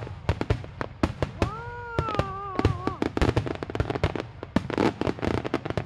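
Fireworks display: a dense, irregular run of bangs and crackling pops from bursting shells. A long, wavering tone sounds over them from about a second and a half in.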